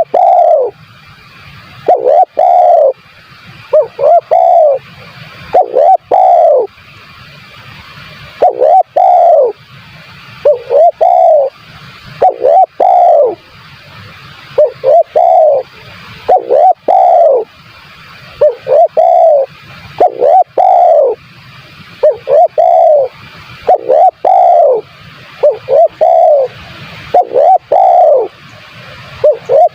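Spotted dove (tekukur) cooing over and over in short phrases of falling coo notes, about one phrase every second or two, over a steady hiss.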